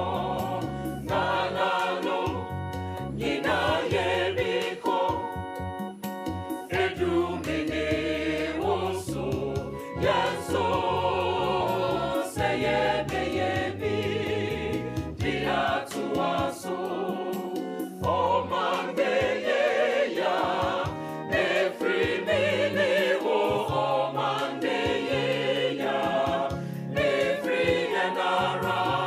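Background music: voices singing together in a choir over a bass line.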